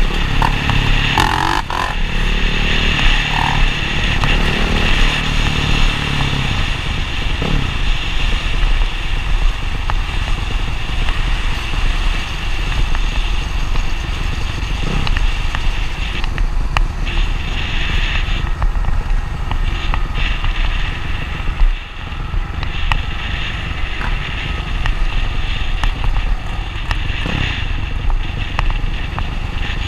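Motocross dirt bike engines running and revving, with the pitch shifting up and down in the first few seconds.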